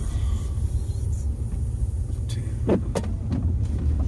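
Steady low rumble of a car's engine and road noise heard from inside the cabin while driving, with three short knocks about two to three seconds in.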